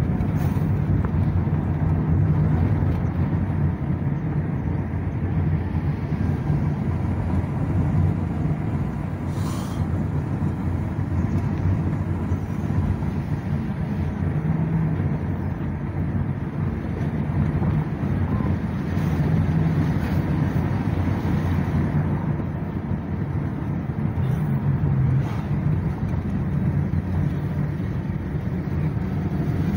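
Ford Escape V6 on a test drive: a steady low engine and road rumble with wind buffeting the microphone.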